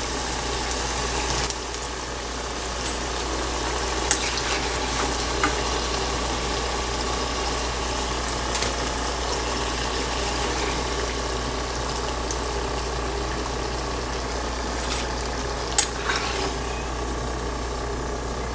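Flour-coated brinjal (eggplant) pieces frying in hot oil, a steady sizzle. A few sharp clinks of the metal slotted spoon against the pan as the pieces are turned and lifted out.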